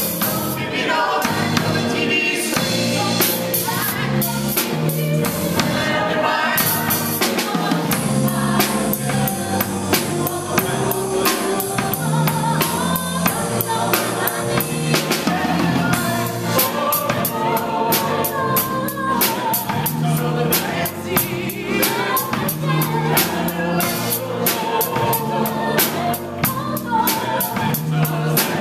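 A live band performing a song: a group of singers with a drum kit and bass guitar backing them, cymbals and drums playing steadily. The music stops right at the end.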